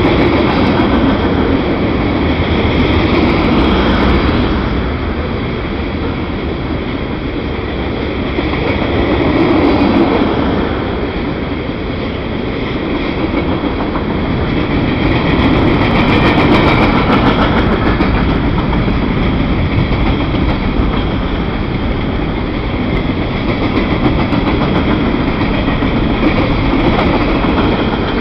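Freight train cars, mostly covered hoppers with some tank cars, rolling past close by: a steady rumble of steel wheels on rail with scattered sharp clicks. The sound swells and eases every several seconds.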